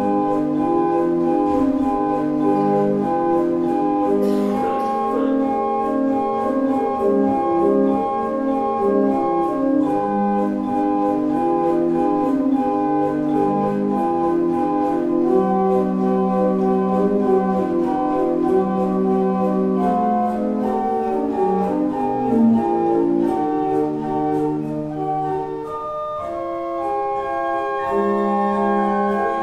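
Church pipe organ playing a slow piece in several voices, with held chords and moving lines. A new phrase begins near the end.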